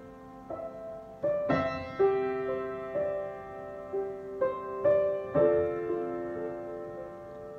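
Piano playing a slow hymn introduction, single notes and chords struck one after another and left to ring.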